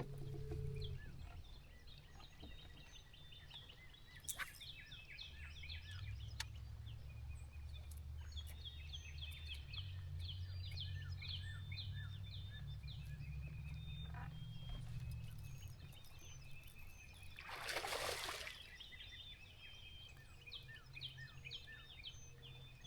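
Faint lakeside ambience: many small bird chirps over a low steady rumble, with a brief rush of noise about 18 seconds in.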